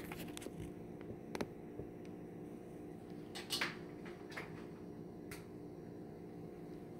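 Cookware and utensils handled at a stove: a few light knocks and clicks, the loudest about three and a half seconds in, over a steady low hum.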